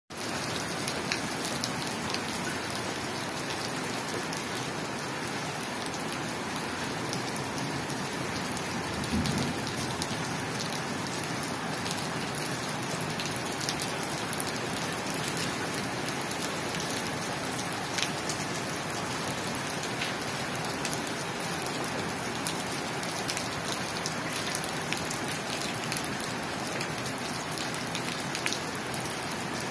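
Steady rain falling on a paved rooftop, an even hiss with scattered drops ticking. A brief low thump about nine seconds in.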